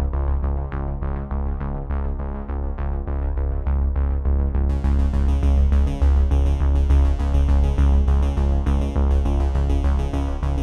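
Background music: electronic synthesizer track with a steady pulsing bass and repeated notes, thickening with brighter high parts about five seconds in.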